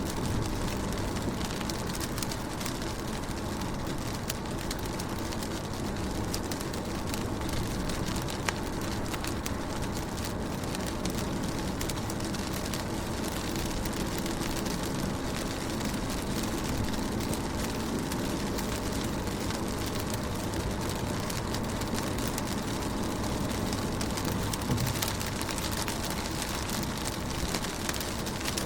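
Rain falling on a car, heard from inside it: a steady patter of drops on the window glass with scattered sharper single drop ticks over a low, even rumble.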